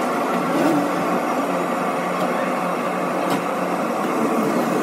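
A steady low machine hum under constant background noise, with no distinct strokes or events.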